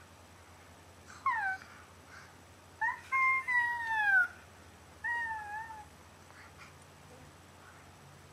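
A baby making three high-pitched squealing vocalizations that fall in pitch, the middle one the longest and loudest.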